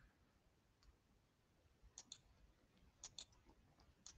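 Near silence broken by faint computer mouse clicks, three pairs of quick clicks about two seconds in, three seconds in and at the very end.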